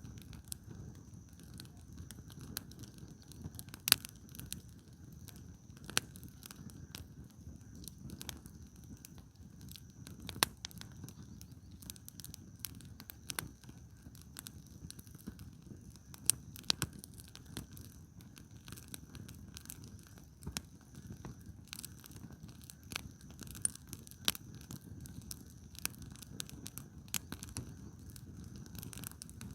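Firewood burning in an open campfire: irregular sharp crackles and pops, some much louder than others, over a low steady rumble.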